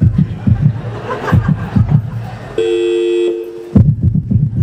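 Bursts of laughter, pulsing rapidly, with a steady two-tone electronic phone beep lasting about a second just past the midpoint, as the car's hands-free system switches to an incoming call.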